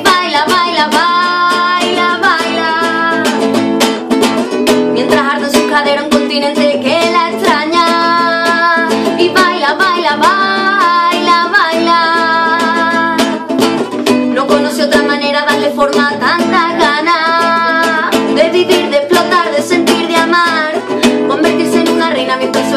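A woman singing with held, wavering notes, accompanying herself on a strummed nylon-string classical guitar.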